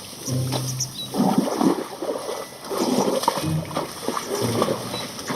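Toys being washed in water, splashing and sloshing in several short, irregular bursts.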